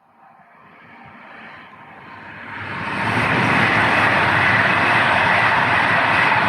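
A train approaching: its noise builds steadily for about three seconds, then holds loud and steady as it passes.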